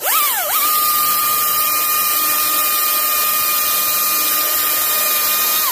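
Husqvarna 540i XP battery-powered top-handle chainsaw, in its economy (E) mode, cutting into hard, older pine. The motor's whine climbs quickly, sags once about half a second in as the chain bites, then holds at an even high pitch over the hiss of the chain in the wood, and winds down at the end.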